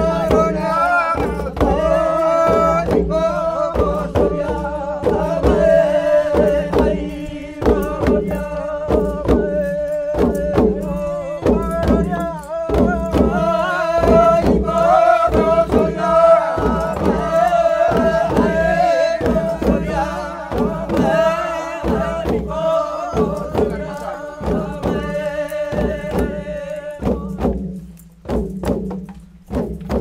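Group chanting in unison over a steady beat of long wooden hand drums. The singing stops near the end and a few drum strokes carry on.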